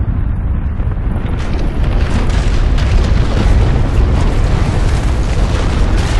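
Loud, continuous deep rumbling roar of ground shaking in an earthquake, with a noisy rushing layer on top that grows fuller about two seconds in.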